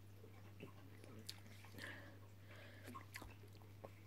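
Near silence with faint chewing of a mouthful of breakfast cereal and a few light clicks, over a low steady hum.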